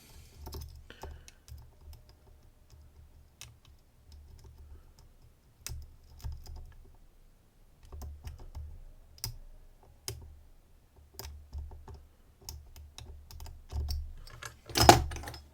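Light metallic clicks and taps of a dimple-lock flag pick working the pins inside a DOM IX-HT lock under light tension, irregular and scattered, over soft handling bumps. A louder brief noise comes near the end.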